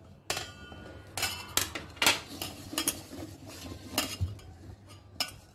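Cut mushrooms being mixed by hand into a dry flour-and-spice coating in a metal bowl, with irregular clinks and knocks against the bowl.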